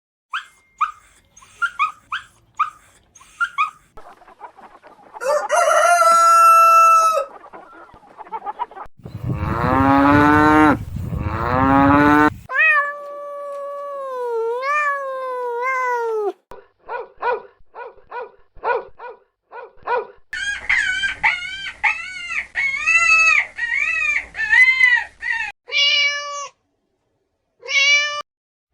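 A series of different animal calls, one after another: bursts of short calls, several long calls, and runs of repeated rising-and-falling calls, with fowl such as chickens and roosters the clearest among them.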